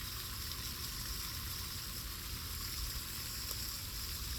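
Steady outdoor background noise: a low, uneven rumble under an even hiss, with no distinct events.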